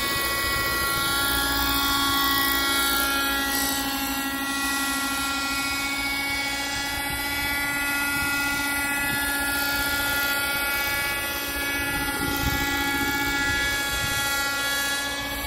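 Fuel-burning radio-controlled model helicopter hovering: its engine and rotors give a steady whine with many overtones, holding a nearly constant pitch.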